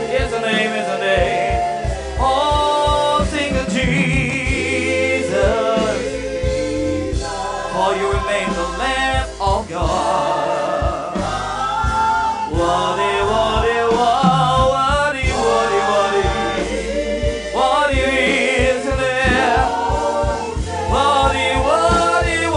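Gospel praise-and-worship music: voices singing a sustained melody over a band with bass and a steady drum beat.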